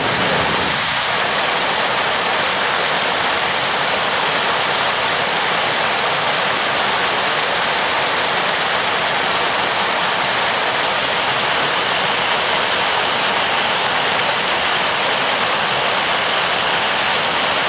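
Mountain stream rushing and splashing over rocks in small cascades, a steady rush of water that fades in at the start.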